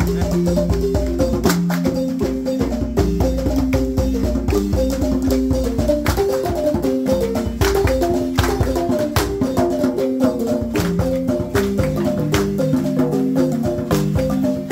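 Dance music: a fast, repeating melody of short xylophone-like notes over hand-drum and shaker percussion.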